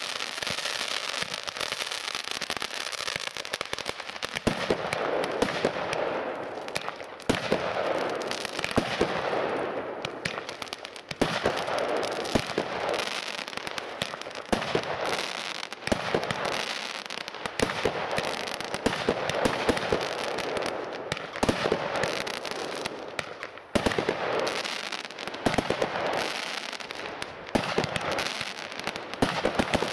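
Weco Power Tec PRO 300.1, a single-ignition firework compact of 23 combined batteries, firing without pause. Shots launch one after another with sharp pops and dense crackling over a steady hiss, with brief lulls between salvos.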